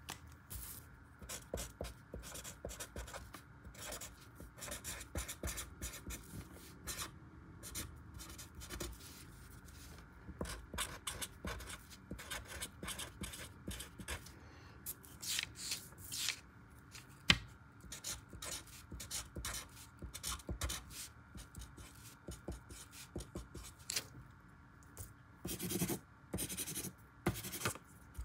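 Felt-tip marker writing on lined paper: a quick run of short scratchy strokes, with a sharp tap partway through.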